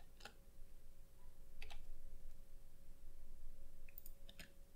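A few scattered keystrokes on a computer keyboard, single clicks a second or more apart, over a faint steady hum.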